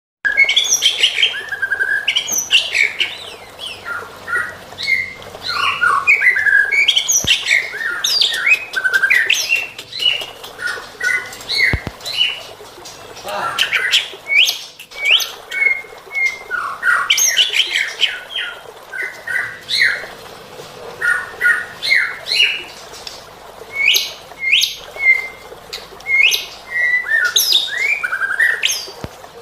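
White-rumped shama (murai batu) singing non-stop in rapid, varied phrases of clear whistles, sweeping notes and chatters, packed with imitated calls of other birds.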